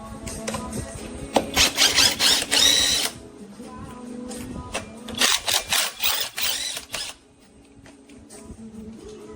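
Cordless impact wrench run in two bursts of rapid rattling hammering, each lasting under two seconds and a few seconds apart, with background music under it.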